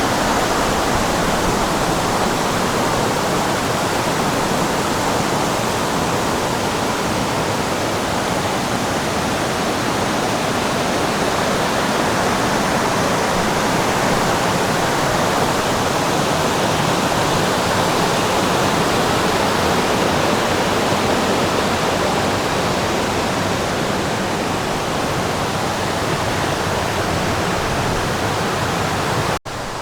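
Waterfall on Brasstown Creek: loud, steady rushing of falling water. Near the end it breaks off abruptly for an instant and comes back a little quieter.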